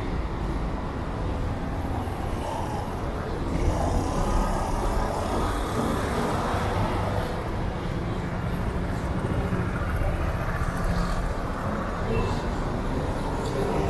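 Steady city street traffic: cars and motor scooters running close by, a continuous low rumble with no single event standing out.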